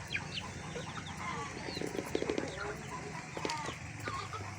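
Indonesian village chickens (ayam kampung) clucking, many short calls overlapping, with a quick run of short knocks about two seconds in.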